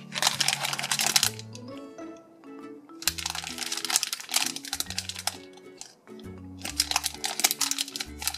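Plastic squishy packaging crinkling in the hands as the bags are squeezed and turned over, in three spells of crackling a second or two long, over background music.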